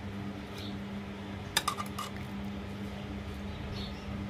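Steel ladle clinking against a karahi as chicken curry is scooped: a couple of quick clinks about a second and a half in, with fainter taps before and after, over a steady low hum.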